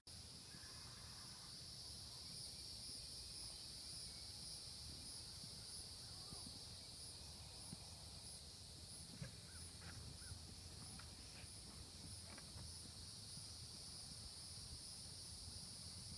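Faint outdoor insect chorus: a steady high buzz with a regular pulsing chirp above it, about one and a half pulses a second. A few faint short calls come in around the middle.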